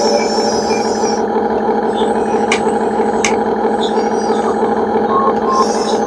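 Radio-controlled construction machine's motor whining steadily at one pitch. Birds chirp high above it in the first second and again near the end, and two sharp clicks come about two and a half and three seconds in.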